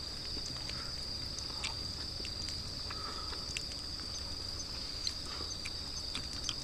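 Night insects trilling steadily at one high pitch, with scattered short crackles from the wood fire.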